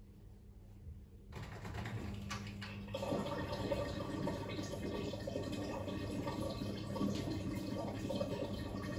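Fisher & Paykel WM1480P front-loading washing machine draining: water rushes out through the drain pump, starting about a second in and growing louder about three seconds in, then running steadily.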